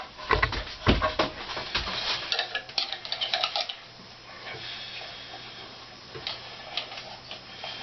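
Hands working on a portable bandsaw's trigger and fastenings: a dense run of clicks, knocks and small rattles for about four seconds, then only scattered faint ticks over a low steady hum.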